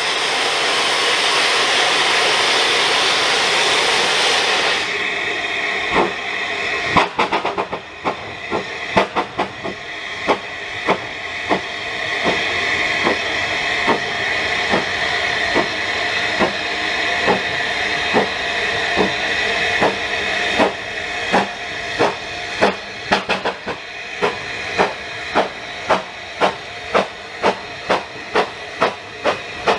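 Narrow-gauge steam train: loud hissing of steam that cuts off suddenly about five seconds in. Then the wheels click over the rail joints in a steady rhythm of about two a second, with a faint high whine from the wheels partway through.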